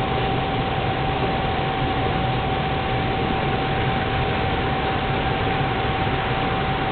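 Propane turkey fryer running: a steady, even rushing hiss from the burner under the steaming oil pot, with a thin steady tone running through it.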